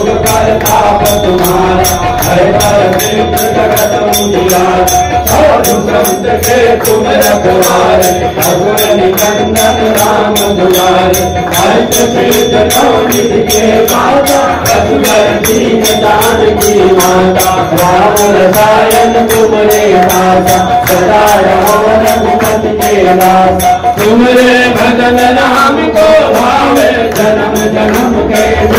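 Hindu devotional hymn to Hanuman, chanted melodically to a steady beat of jingling percussion.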